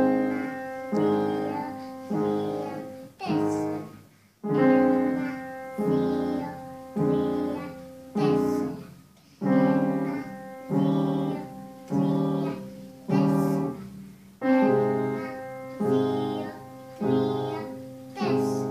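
Upright piano played by a young child and an adult side by side. Notes and chords are struck about once a second, each ringing and fading, in short phrases with brief breaks about four, nine and fourteen seconds in.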